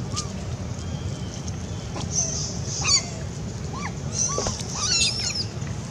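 Short, high, arching squeaks and chirps from an infant long-tailed macaque, several of them between about two and five seconds in. They sit over a high buzz that swells every couple of seconds.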